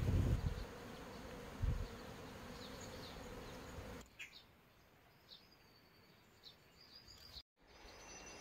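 Honeybees buzzing in a steady drone around their hives, with a low rumble near the start. About four seconds in it drops to a quieter stretch with faint, short bird chirps.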